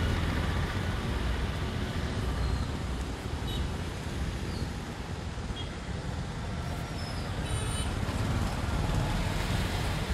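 Road traffic on a wet, waterlogged road: motorcycles and auto-rickshaw engines running past with a steady rumble and the hiss of tyres through water.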